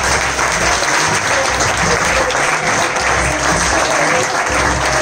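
Club audience applauding steadily, a dense patter of many hands clapping.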